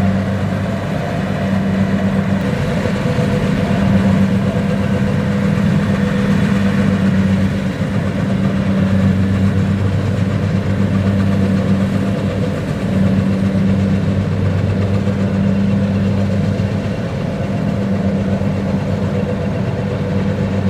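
Kubota DC-70 combine harvester's diesel engine running steadily while harvesting rice, a loud continuous drone whose low hum fades and returns every few seconds.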